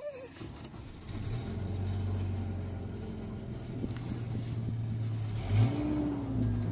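Pickup truck engine running, heard from the open cargo bed. It comes in about a second in as a steady low hum and briefly rises and falls in pitch a little past the middle as it revs.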